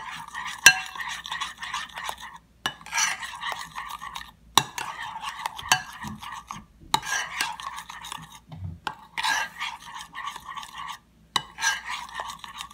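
Metal spoon stirring a thick mayonnaise dressing in a mixing bowl, scraping against the bowl in spells of about two seconds with short pauses between. A few sharp clicks come from the spoon knocking the bowl.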